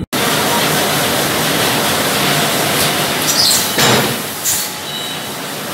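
Steady, loud hiss of a forge shop around a running Hasenclever friction screw press, with two brief louder hissing surges a little past three seconds and at about four seconds.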